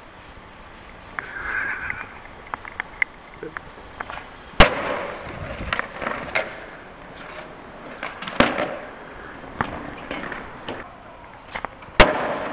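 Skateboard wheels rolling over pavement, broken by sharp cracks of the board popping and landing: loud ones about four and a half seconds in, around eight seconds, and just before the end.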